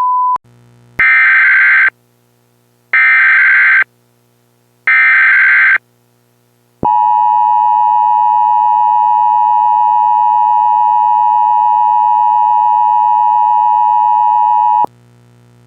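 Emergency Alert System tones: three SAME data header bursts, about a second long each and a second apart, with a harsh digital screech, then the EAS two-tone attention signal (853 and 960 Hz) held steady for about eight seconds and cut off abruptly. Together they mark the start of an emergency alert, here a civil danger warning. A short beep comes just before the first header burst.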